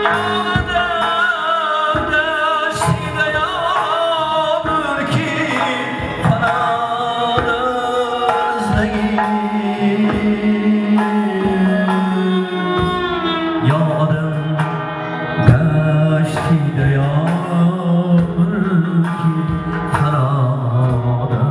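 Live Uzbek song: a man singing into a microphone over electronic keyboards, a bowed ghijak spike fiddle and a doira frame drum beating out the rhythm.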